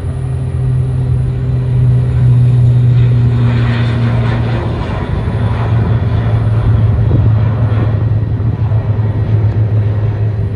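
Airbus C295 twin-turboprop transport taking off and climbing away: a loud, steady low drone from its engines and propellers.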